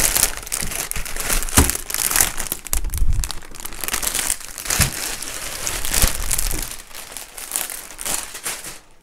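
Clear plastic wrap crinkling as it is pulled and worked off a large wood-framed diamond-painting canvas, with a few dull bumps from handling the board. The crinkling thins out near the end.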